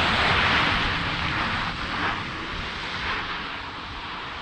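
Volkswagen ID.Buzz electric van on winter tyres driving at speed: steady tyre and wind noise with no engine note, slowly fading.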